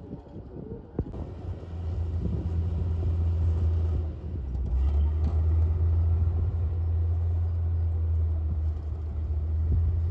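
Komatsu D58P bulldozer's diesel engine working under load, a steady low drone that grows louder about a second in and again a few seconds later.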